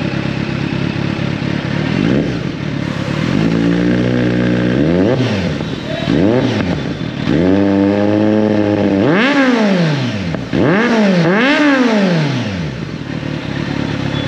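Kawasaki Z900's inline-four engine through an aftermarket Akrapovič exhaust, idling and then revved in a string of quick throttle blips, some held high for a second or so, before dropping back to idle near the end.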